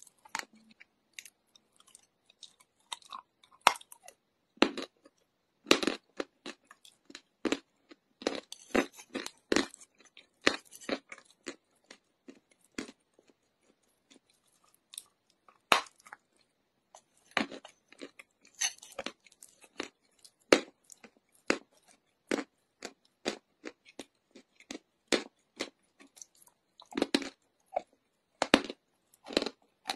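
Chalk being bitten and chewed: many short, irregular crunches, with a quieter pause about halfway through.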